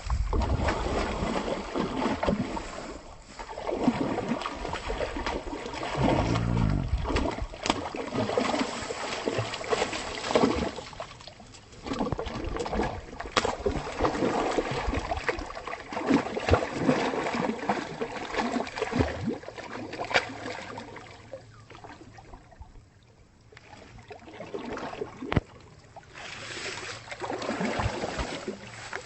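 Splashing and sloshing of water and mud from someone wading through a muddy shallow, coming in uneven waves with scattered knocks and clicks.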